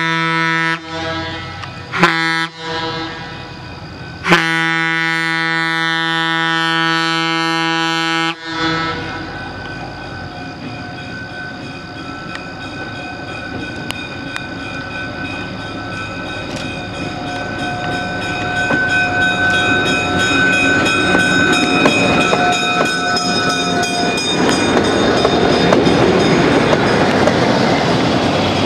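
A train horn sounds in steady blasts, the longest ending abruptly about eight seconds in. Then a moving train rumbles and clatters over the rails, growing louder toward the end.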